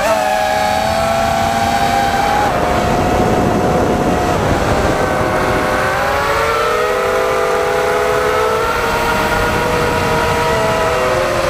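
FPV quadcopter's electric motors and propellers whining, with several pitches that rise and fall separately as the throttle and the individual motor speeds change.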